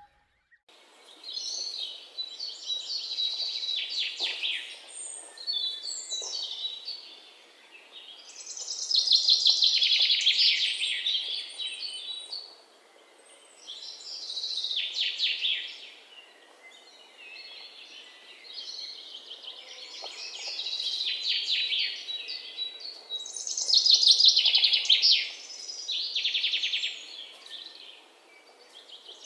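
Songbirds singing: phrases of fast, high trilled chirps a few seconds long, repeating with short pauses, the loudest around ten seconds in and again near twenty-four seconds, over a faint steady hiss.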